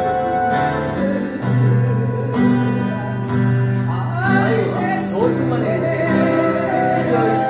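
Flute playing a slow melody with vibrato over a backing track with guitar and low sustained accompaniment.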